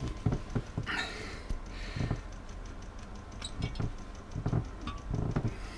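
Scattered light metal knocks and clicks as the heat exchanger of a Volvo Penta TMD22 marine diesel is worked off its mounting studs by hand and with a T-handle wrench. Two short scraping sounds come about one and two seconds in.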